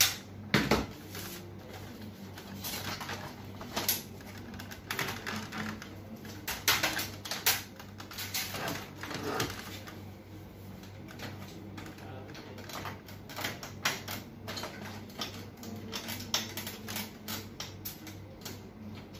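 Plastic casing and scanner assembly of an HP LaserJet Pro 200 Color MFP M276n clicking, knocking and rattling irregularly as it is handled and worked loose during disassembly, over a steady low hum.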